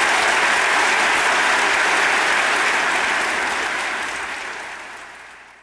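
Audience applauding at the end of a stage musical number, the applause fading away over the last second or two.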